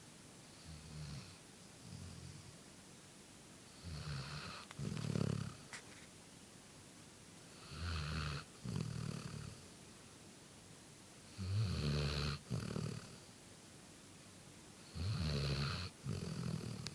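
Golden retriever puppy snoring in her sleep. Two faint snores come first, then four louder ones about every three and a half to four seconds, each in two parts.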